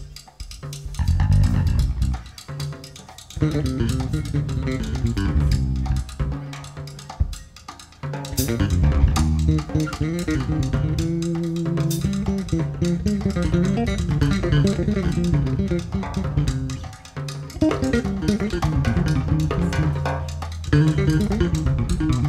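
Electric bass playing a moving jazz line over a drum kit.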